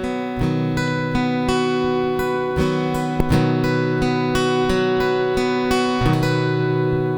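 Acoustic guitar strumming chords in a steady rhythm, changing chord several times: the instrumental introduction to a worship song.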